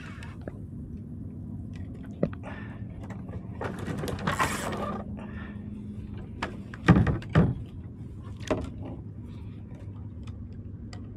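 Fishing reel being cranked in a steady whirr while a hooked bluefish is played from a kayak, with a few sharp knocks, the loudest about seven seconds in.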